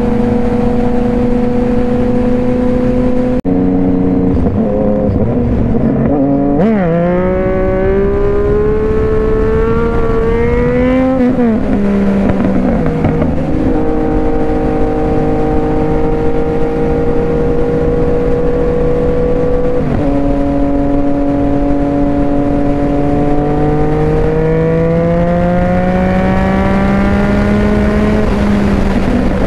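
Yamaha FZ-09 three-cylinder motorcycle engine heard from the rider's seat while riding. It cruises at steady revs, climbs in pitch under acceleration about a third of the way in, settles back to a steady drone, then makes a long rising pull near the end.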